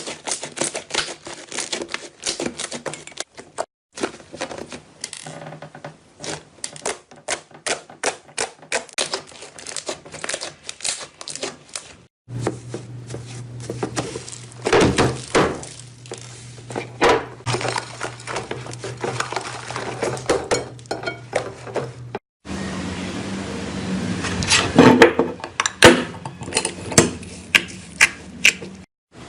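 Slime being squeezed, poked and stretched by hand: a rapid, irregular run of wet clicks and pops, in several short clips cut one after another.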